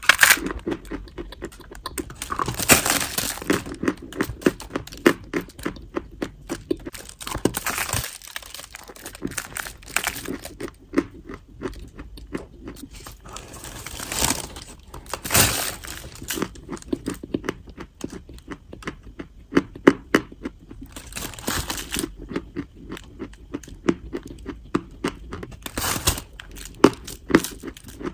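Chalk being bitten and chewed close to the microphone: a loud crunch every few seconds, with dense crackly chewing in between.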